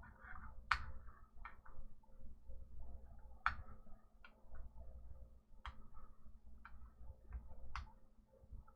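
Irregular small clicks and taps from hands working the magnetic sheet on a 3D printer bed, pressing out bubbles, over a low steady hum.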